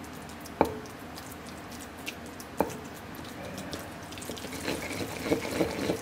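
Wooden pestle grinding tofu in a ridged earthenware suribachi mortar. The pestle knocks sharply against the bowl twice, about two seconds apart, then settles into a quickening run of short scraping strokes through the second half.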